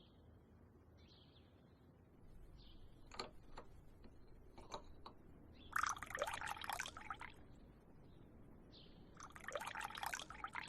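Liquid being poured, twice, each pour lasting about a second and a half, with a few light clicks before the first.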